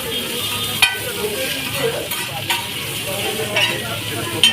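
Chow mein sizzling in a hot wok as it is stirred, with a metal spatula clanking sharply against the pan about a second in, twice midway and near the end.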